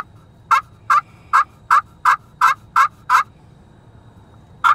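Pot-style friction turkey call worked with a wooden striker, giving a run of about nine evenly spaced hen-turkey yelps. A pause follows, and another run begins near the end.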